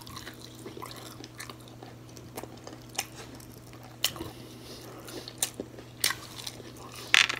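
Close-up eating sounds of fried battered seafood: chewing with several sharp, irregular crunches as the crispy coating is bitten.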